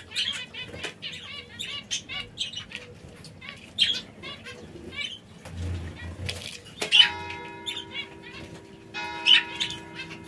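Aviary canaries chirping with quick, repeated short calls, along with wing flutters. From about seven seconds in, held bell-like tones at a steady pitch come in, in two or three sustained chords.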